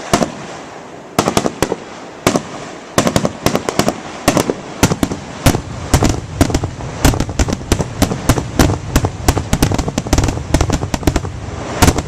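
Aerial fireworks bursting, a few spaced bangs at first, then from about four seconds in a rapid barrage of many sharp reports a second.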